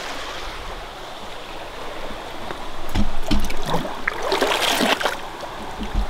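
Small creek flowing steadily. About halfway through come a few low knocks and splashing as a metal cook pot is dipped into the water.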